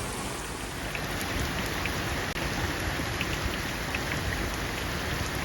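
Steady rain from a Florida afternoon rainstorm, with scattered sharp taps of single drops; it grows a little louder about a second in.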